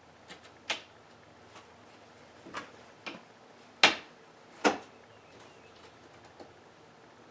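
Irregular sharp taps and knocks on a wooden picture frame during its repair, about eight of them, the loudest two a little under a second apart near the middle.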